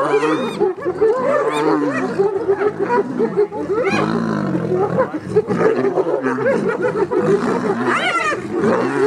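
Spotted hyenas and a lion fighting at a buffalo carcass: a dense din of many overlapping hyena squeals and growls, with lion snarls among them. A cluster of high, rising-and-falling squeals comes about eight seconds in.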